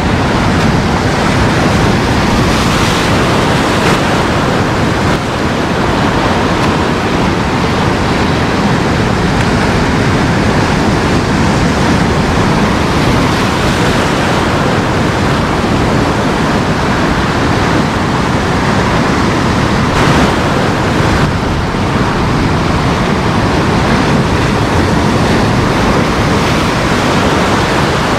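Ocean surf breaking and washing in foam over a rocky shore ledge: a steady, loud rush of water.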